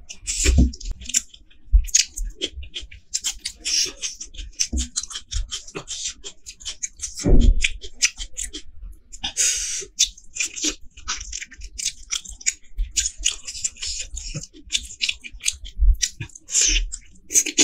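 Close-miked eating sounds: wet chewing and clicky mouth noises from someone eating rice, curry and meat off the bone by hand, with one louder low thump about seven seconds in.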